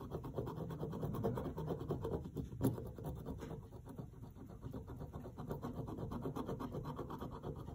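The back of a pair of scissors is rubbed quickly back and forth over a self-adhesive vinyl decal on a wooden block, a steady scratching that burnishes the vinyl down so it sticks. There is one sharper click about two and a half seconds in.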